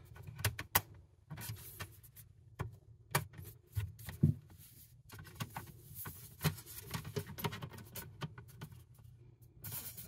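Irregular light clicks, taps and rattles of an ASUS ROG Zephyrus M GM501 laptop's bottom cover panel as it is pulled and pried off the chassis by hand.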